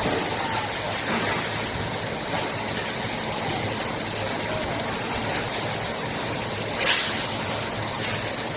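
Foam mattress gluing line machinery running with a steady noise and a low hum, with a brief hiss about seven seconds in.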